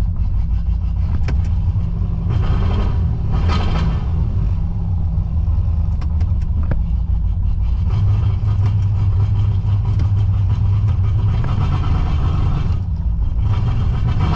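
Holden VN Calais engine running under load while the car stays put, its rear wheels locked by a seized differential. It is a steady low rumble that grows heavier about eight seconds in.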